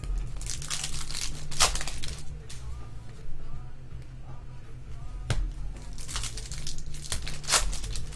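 Foil trading-card pack wrapper crinkling and cards rustling as they are handled, in two spells of a second or two each. A single sharp click comes between them.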